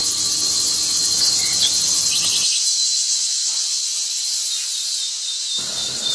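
Dense, steady, high-pitched chorus of insects in forest. A faint low rumble underneath drops out about two and a half seconds in and comes back near the end.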